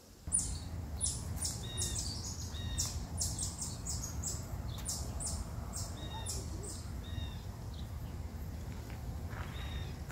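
Small birds chirping in a run of quick, high chirps that go on for most of the first seven seconds, over a steady low rumble of outdoor background noise.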